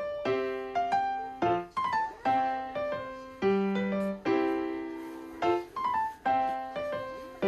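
Background music: a piano playing a gentle melody over chords, the notes struck and left to fade.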